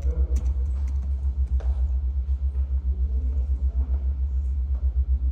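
Steady low rumble that pulses fast and evenly throughout, with a few faint clicks and distant murmuring over it.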